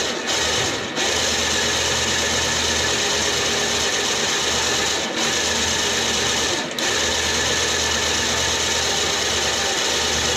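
A salvaged electric winch motor, fitted in place of the engine on an MTD yard tractor and fed 12 volts, running steadily and turning the tractor's drivetrain. It is a loud, continuous motor-and-gear whir that dips for a moment a few times, then cuts off at the end.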